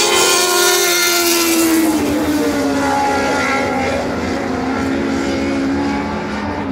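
Lightning sprint race cars running on a dirt oval, one high-revving engine note sliding slowly lower in pitch.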